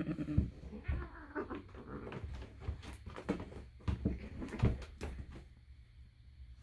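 Cats vocalizing in short pitched calls, amid repeated knocks and scuffling as they play-fight; it quiets near the end.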